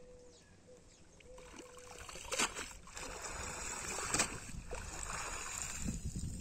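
Wet cast net being hauled up out of a pond, water splashing and streaming off the mesh. It builds from about a second and a half in, with two brief sharper sounds along the way.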